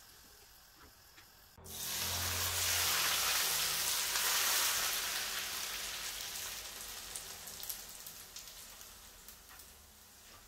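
Hot oil and fried onions poured from a frying pan onto a pot of mujaddara, sizzling loudly. The sizzle starts suddenly about a second and a half in, then slowly dies down into scattered crackles.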